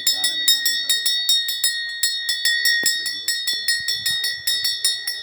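Puja hand bell rung continuously and evenly, about four or five strokes a second, each stroke ringing on in a clear high tone.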